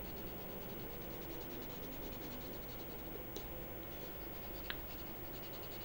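Pencil scratching on paper in steady shading strokes, with two faint ticks around the middle and later on.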